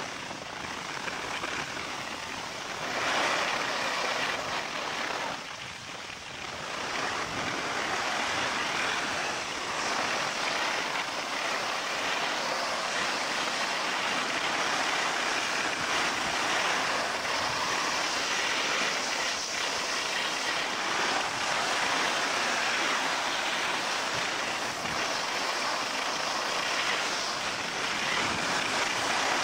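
Steady hiss of skis sliding and scraping over packed snow on a downhill run, with wind rushing past the microphone; it eases briefly about six seconds in, then runs on evenly.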